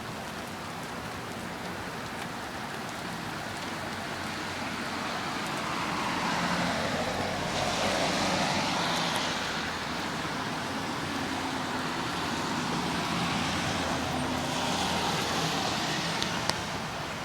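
Steady hiss of hard rain during a thunderstorm, swelling twice for a few seconds, with a brief click near the end.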